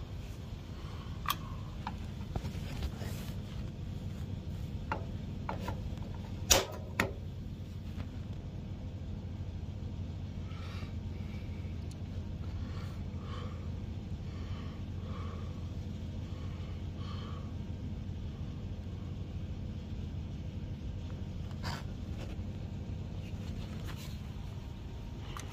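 Commercial gas water heaters being lit and running: a steady low hum, with a few sharp clicks, the loudest about six seconds in and another near the end.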